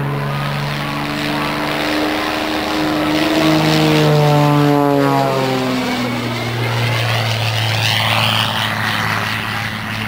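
Aerobatic propeller biplane's engine running hard overhead. Its note rises slightly, falls away about halfway through, then holds steady at a lower pitch.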